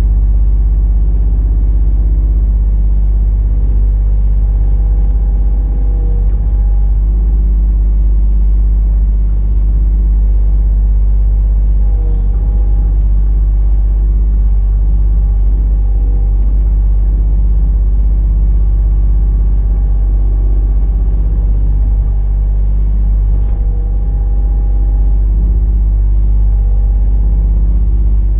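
Mini excavator engine running steadily under load, with a whine that comes and goes every few seconds.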